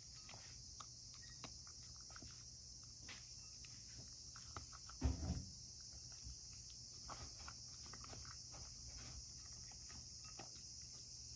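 Cat crunching dry kibble from a bowl: irregular small crunches and clicks, with one louder thump about five seconds in.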